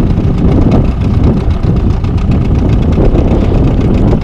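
Wind buffeting the microphone over the steady running of a 25 hp Yamaha outboard motor, holding the boat at slow trolling speed.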